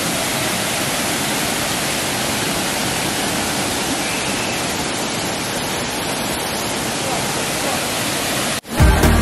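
Steady rush of a waterfall close by, an even hiss of falling water. It cuts off suddenly near the end and music with a heavy bass beat starts.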